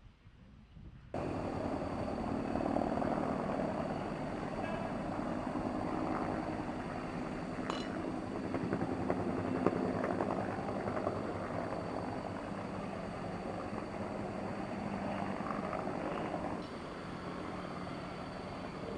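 Helicopter flying over, a steady loud rotor and engine noise that cuts in abruptly about a second in.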